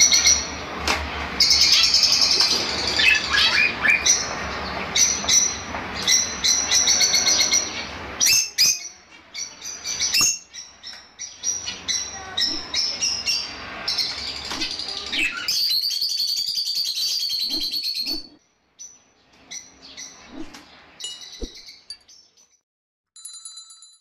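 A flock of Fischer's lovebirds chattering in high, rapid chirps and squeaks. The chatter is dense at first, breaks into sparser bouts with a loud burst about two-thirds of the way through, then dies away. A low hum sits under the first third.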